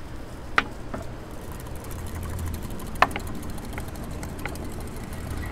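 A spoon clicking against a container a few times, the sharpest click about three seconds in, as mustard is added to beef stock for a sauce, over a steady low hum.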